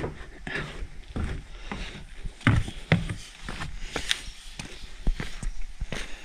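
A hiker's footsteps on a wooden cabin porch and then on bare rock: irregular knocks and scuffs, with two heavier thuds about two and a half and three seconds in.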